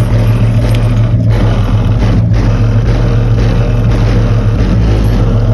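Loud, steady low bass from a car stereo heard from outside the car: a Kicker ZR360 amplifier driving a single Kicker L5 Solo-Baric 10-inch subwoofer in a custom enclosure.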